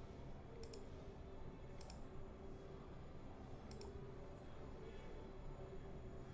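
Quiet background through an electret microphone and preamplifier: a faint steady hum under low hiss, with three faint double clicks in the first four seconds.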